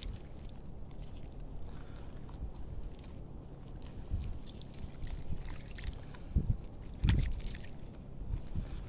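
Steady low rumble of wind and water on an action camera's microphone, with two louder bumps about six and a half and seven seconds in.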